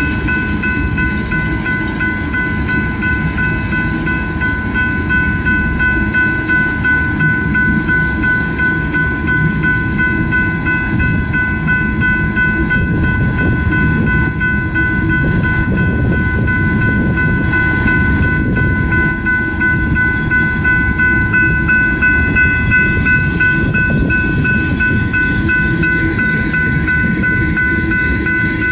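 Freight train of tank cars rolling past: a steady rumble of wheels on the rails, with a steady high ringing tone above it from the grade crossing's warning bell.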